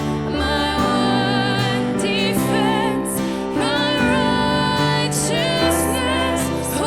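Slow worship music: sustained chords under a held melody line that wavers in pitch.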